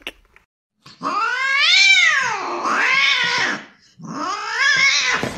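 Domestic cat yowling in two long drawn-out calls: the first rises and then falls in pitch, and the second, about four seconds in, wavers up and down.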